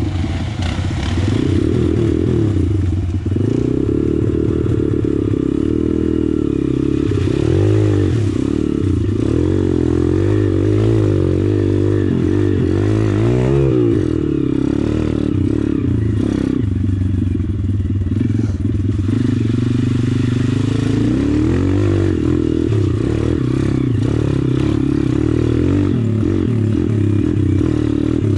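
Engine of a 140 cc YX off-road motorcycle running under way, its revs rising and falling over and over as the throttle is worked.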